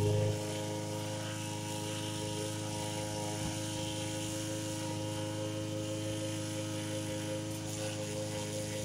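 Walk-behind lawn mower running steadily at a constant pitch while it is pushed across grass, a little louder at the very start.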